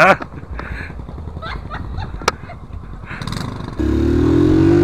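Low background noise with faint voices and a few sharp clicks, then, near the end, a motorcycle engine cuts in suddenly and runs steadily under way, its pitch rising slowly as it accelerates.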